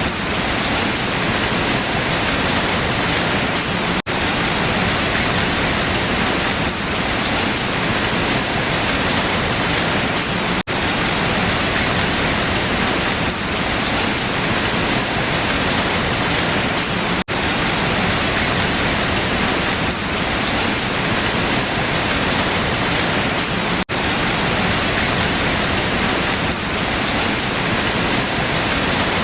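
Steady heavy rain falling on leaves, a dense even patter. A brief sharp dropout comes about every six and a half seconds.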